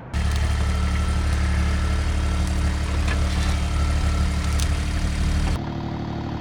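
Mini skid steer engine running steadily with a strong low hum. About five and a half seconds in it cuts to a quieter, steady idle.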